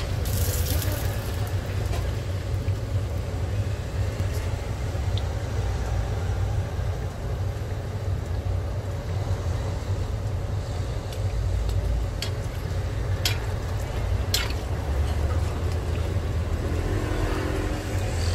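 Hotteok frying in shallow oil, a steady sizzle over a continuous low rumble, with a few sharp metal clicks about two-thirds of the way through.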